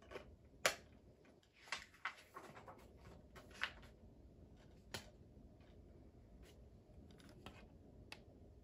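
Handling noise from a steelbook disc case: a series of clicks and short scrapes, the loudest a sharp click just under a second in, with the clicks growing fewer and fainter later on.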